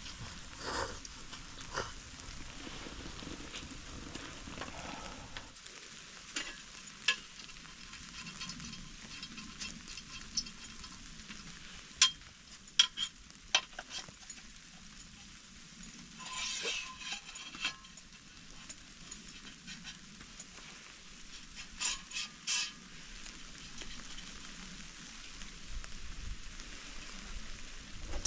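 Food sizzling in a pan on the tent's wood stove, with a utensil stirring and clinking against the pan now and then.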